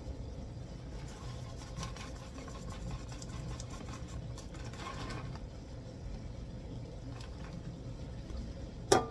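Low steady background hum with faint scattered light ticks. Near the end comes a quick, loud rattling clatter of utensils against a bowl.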